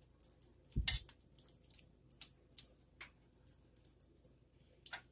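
Faint, scattered ticks and crackles from a little cooking oil starting to heat in an empty non-stick frying pan, with one soft knock about a second in.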